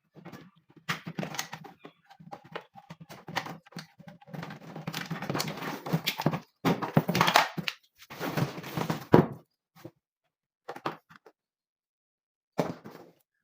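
Irregular knocking, clicking and scraping of parts being handled while an air-conditioner indoor unit is worked on. It is busiest through the middle, with a few single knocks near the end.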